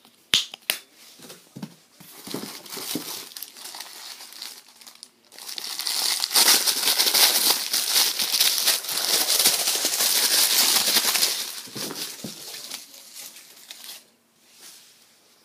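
Packaging of Nescafé coffee being crinkled and handled: a couple of sharp clicks just after the start, then dense crackly crinkling that grows loudest through the middle for about six seconds before thinning out near the end.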